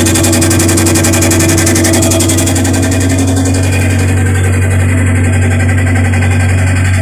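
LG top-loading washing machine's electric drive motor running and turning its belt pulley, a steady loud low hum. A higher whirring layer drops away about four seconds in.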